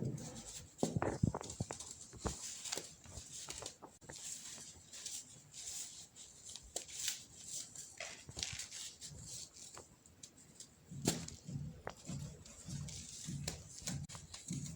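Compacted baking soda crumbles being crushed into powder: soft, irregular crunching and crackling, with clusters of duller thuds about a second in and again near the end.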